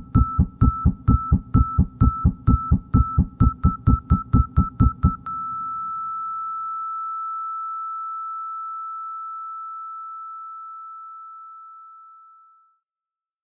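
Synthesized alert beep from an electronic track, pulsing rapidly about four to five times a second with a low thump on each pulse. About five seconds in the pulsing stops and a single steady high beep holds, slowly fading out over about seven seconds.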